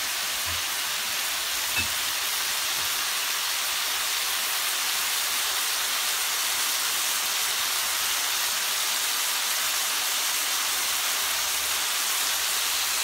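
Sliced courgette, mushrooms and sweet peppers sizzling steadily in hot grapeseed oil and sauce in a frying pan, with one light tap about two seconds in.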